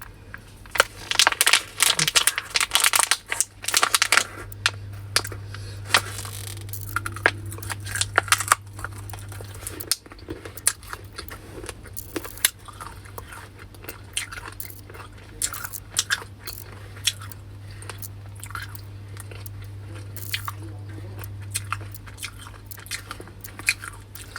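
A person chewing and crunching a packaged Chinese snack, which she takes for some kind of meat, close to the microphone, in irregular crunches that come thickest in the first few seconds. A low steady hum sits under most of it.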